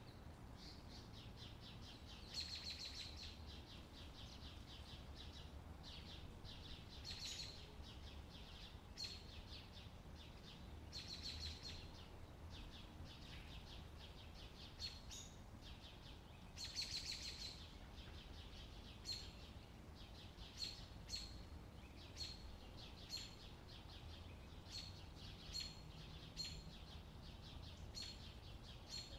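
Songbird song: a few rapid, buzzy trills about a second long, then a string of short chirps roughly every second, over a faint steady low rumble.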